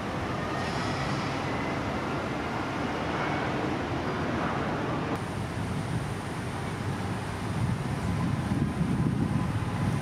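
Steady low rumble of outdoor background noise that gets a little louder near the end.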